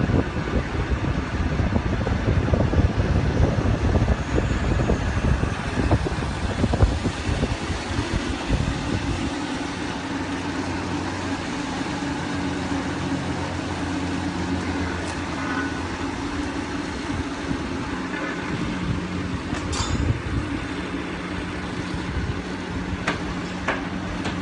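A wind gust buffeting the microphone with a heavy low rumble, strong for about the first nine seconds and then easing. A steady mechanical hum with a low drone carries on underneath, with a few faint clicks.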